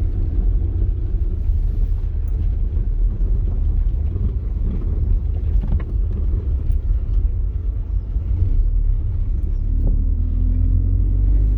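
Car engine and road rumble heard from inside the cabin while driving, a steady deep drone. Near the end the engine note climbs as the car accelerates.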